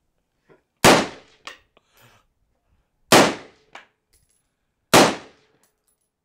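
Three rifle shots about two seconds apart. Each is followed about half a second later by a faint ping of a distant steel target being hit.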